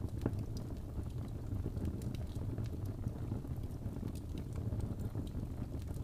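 Wood logs burning in a fireplace: a steady low rumble of the flames with scattered sharp crackles and pops, a few a second.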